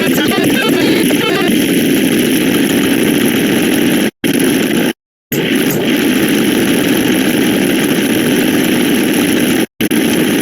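Loud, dense rumbling noise from a sound-effect clip, repeated. It cuts to dead silence for a moment about every four and a half seconds as one play of the clip ends and the next begins.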